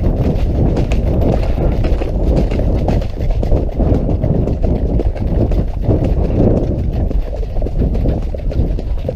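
Horses' hooves striking a muddy, stony track at a steady pace, a continuous run of hoofbeats from the ridden horse and the horses ahead, over a heavy low rumble.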